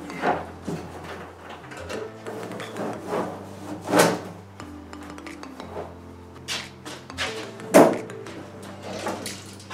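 Background music with a few sharp knocks and clanks from a cut-off car roof panel being handled on the floor. The loudest clank comes near the end, as the roof is lifted by its edge.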